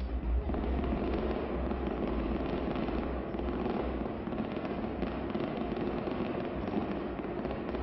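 Fireworks going off: a dense, continuous crackling of many rapid small reports, with low booms that are strongest in the first half second.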